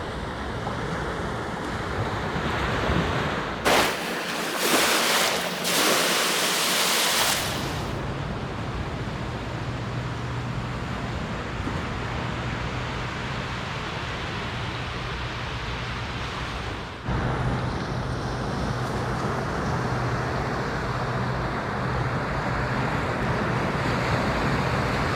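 Surf washing onto a sandy beach, with wind noise on the microphone. A louder, hissier surge lasts a few seconds about four seconds in, and a faint low steady hum runs underneath later on.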